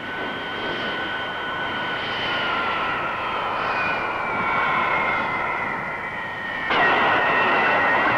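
Ilyushin Il-62 airliner's four rear-mounted turbofan engines whining during its landing run, the whine slowly falling in pitch. Near the end the engine noise jumps suddenly louder, as reverse thrust is applied to shorten the run.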